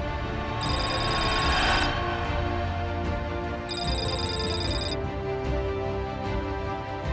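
Outro music with a high, ringing tone that sounds twice, about a second each time, roughly three seconds apart.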